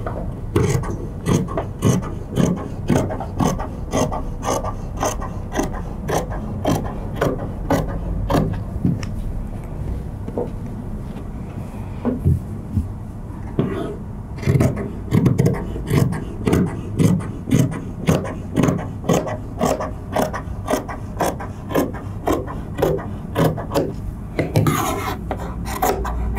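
Fabric scissors snipping through Chanel-style tweed while cutting a long stripe: a steady run of short, crisp cuts, about two or three a second, with a short lull about halfway through.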